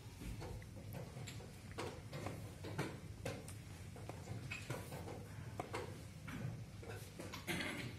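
Plastic chess pieces knocked down on a roll-up vinyl board and a digital chess clock's buttons pressed in a blitz game: a string of sharp, irregular clicks and knocks over a steady low hum.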